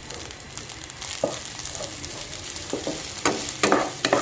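Fried rice sizzling in a pan as it is stir-fried, the spatula knocking and scraping against the pan several times, more often in the second half.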